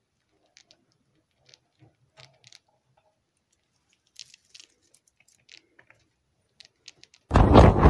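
Pet rat chewing a cookie treat: faint, irregular little crunches and clicks. Near the end, loud wind noise buffeting a microphone cuts in abruptly.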